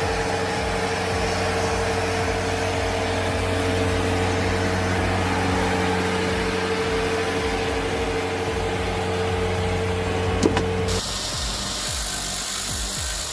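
Heavy forestry machine running steadily: an engine hum with a constant whine. About eleven seconds in it cuts abruptly to a different, rougher machine sound.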